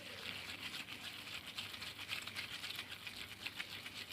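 Fresh mayana (coleus) leaves crushed and rubbed between the hands, a dense run of rapid small crackles and rustles as the leaves are bruised for their juice.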